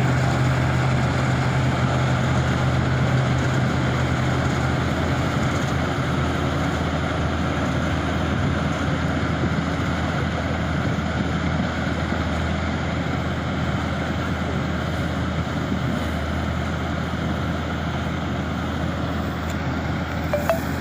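Wheat harvesting machinery running steadily: a constant low engine hum under a dense mechanical rush. Part of the low hum eases off about five seconds in.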